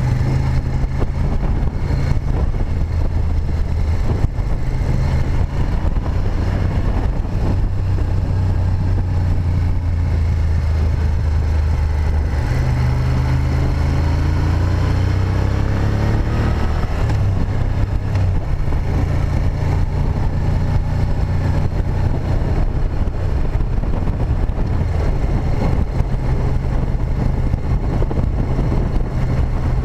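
Moto Guzzi Griso 8V SE's air-cooled V-twin running steadily under way, heard from the bike itself over a steady rush of wind and road noise. About halfway through, the engine pitch rises for a few seconds as the bike accelerates.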